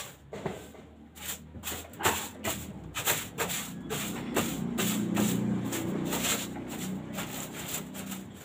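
Quick, repeated rubbing and scraping strokes. A low hum joins them about four seconds in and fades near the end.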